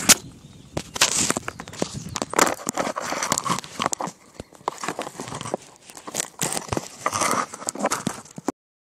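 Handling noise from a phone: fingers and fabric rubbing and scraping over its microphone in irregular rustles and clicks, cutting off abruptly near the end.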